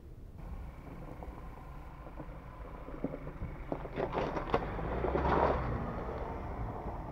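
Ford Ranger Raptor pickup driving past over a muddy, stony track: a steady low engine rumble swells as it comes close, with tyres crackling over gravel and mud, loudest about five seconds in, then easing as it moves away.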